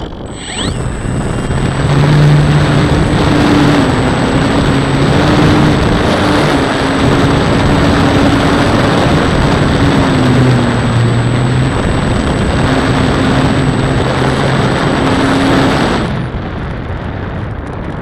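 A model airplane's motor and propeller run loud with a thin steady high whine. The motor starts about half a second in, its pitch stepping up and down a few times, and cuts off about 16 s in, leaving wind rushing over the onboard microphone.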